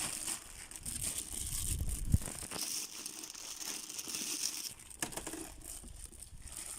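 Plastic packaging crinkling and rustling as a new sewing machine is unwrapped, with one dull knock about two seconds in.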